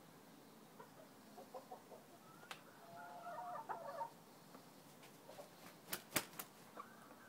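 Chickens clucking faintly, with a few sharp clicks or knocks just after six seconds in.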